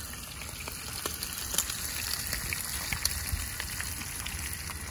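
Thin strips of cecina (salted beef) sizzling in their juices in a frying pan on a propane camp stove: a steady hiss dotted with quick crackling pops.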